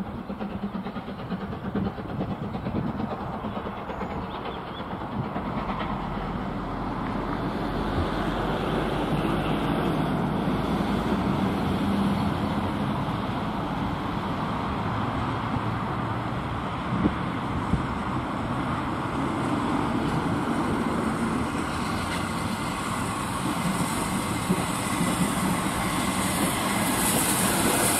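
USATC S160 2-8-0 steam locomotive No. 6046 approaching with a goods train. The sound grows steadily louder as it nears and turns brighter over the last few seconds.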